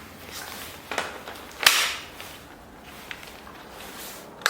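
Sharp plastic snap with a smaller click before it, from handling the newly unboxed cordless circular saw and its parts, with light handling noise between.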